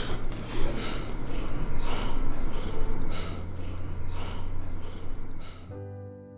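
A man breathing hard under exertion: quick, forceful breaths about twice a second over a low steady music drone. Near the end the breathing stops and soft music takes over.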